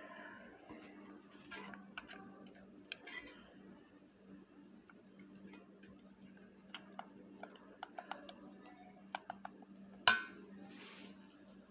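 A metal spoon stirring chocolate sauce in a stainless steel pot, giving scattered light clicks and clinks against the pot, with one loud metallic clink about ten seconds in. A steady low hum runs underneath.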